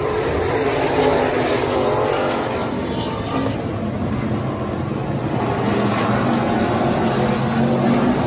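Factory stock race car engines running at speed around the track, their note rising and falling.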